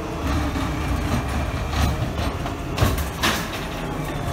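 McNeilus ZR automated side-loader garbage truck running at the curb, its engine rumbling steadily, with a few sharp clanks and bangs from the side arm and cart, the loudest about three seconds in.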